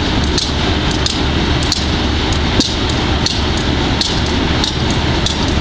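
GE B30-7 locomotive's 12-cylinder FDL diesel engine running with a steady loud rumble and a sharp knock about one and a half times a second. This is a unit with bad fuel injectors.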